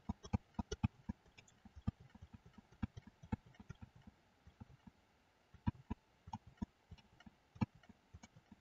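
Faint, irregular clicks of a computer mouse and keyboard: several a second at first, then sparser, with a couple of louder clicks near the end.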